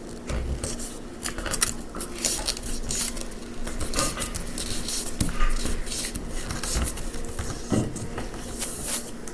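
A sheet of paper being folded and creased by hand: irregular rustling and crinkling with many small sharp crackles.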